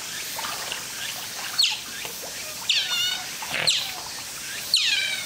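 Oriental short-clawed otters giving short, high-pitched chirping calls, about five of them, each falling in pitch, beginning about a second and a half in.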